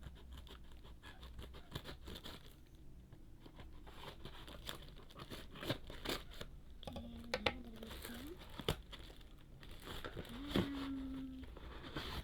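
Plastic shopping packaging being torn open and crumpled by hand: irregular crinkling with sharp tearing crackles.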